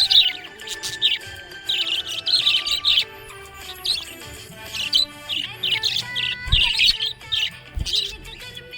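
Budgerigars chirping and twittering in quick bursts, one after another, with background music underneath.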